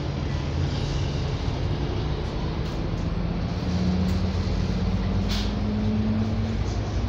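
Alexander Dennis double-decker bus running, heard from inside the cabin: a steady low drone whose pitch climbs gradually from about three seconds in as the bus picks up speed. A short hiss comes a little after five seconds.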